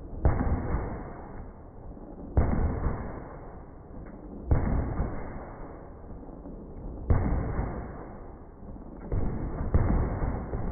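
M2 .50 BMG heavy machine gun firing, slowed down: a deep boom about every two seconds, each fading out slowly.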